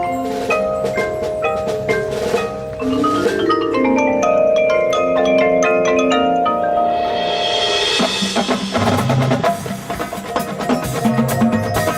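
Marching band and its percussion playing a show piece: held chords and mallet percussion with a climbing run of notes, then a swell about seven seconds in and heavier drum beats near the end.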